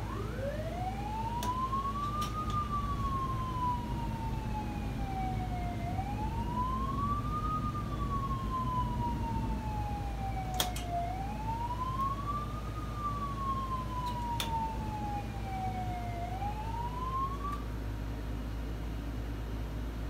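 Motor-driven warning siren sounded from a bridge operator's control console, winding up and then sliding slowly down in pitch, about every five seconds for three and a half cycles, then stopping a few seconds before the end. A few sharp clicks of console switches and a steady low hum run beneath it.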